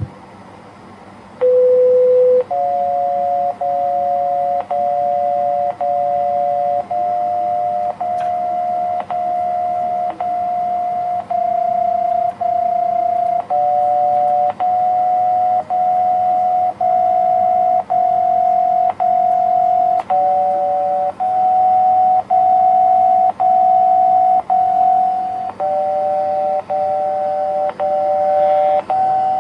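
Electronic chime melody from a municipal disaster-prevention radio loudspeaker: a single note, then a steady run of two-note chords at about one a second, each held and stepping to the next pitch, the warning chime of the public-address system.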